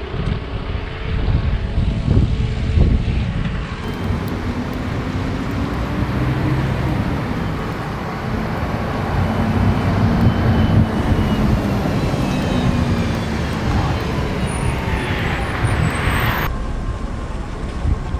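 Road traffic: cars passing on the adjacent street, a steady rumble with a few slow glides in pitch as vehicles go by.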